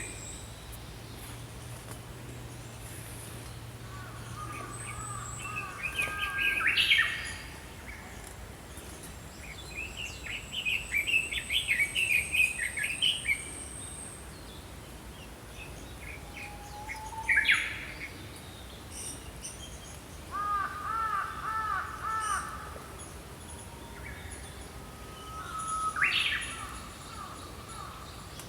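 Small songbirds singing in separate phrases with pauses between them, one of them a run of quick repeated arching notes. A thin, high, steady note is held for several seconds in the middle.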